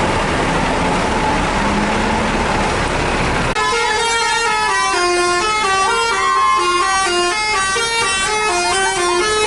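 Steady road and engine noise, then an abrupt change about three and a half seconds in to a bus's telolet 'basuri' musical horn playing a melody of short held notes stepping up and down in pitch.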